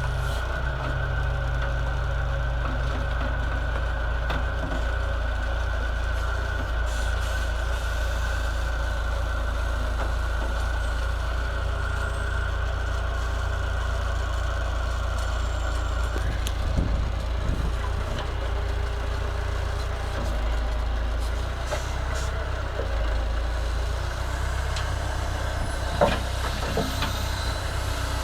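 Massey Ferguson 50HX backhoe loader's diesel engine running steadily, with a steady high whine that steps up slightly in pitch about halfway through and a few short knocks in the second half.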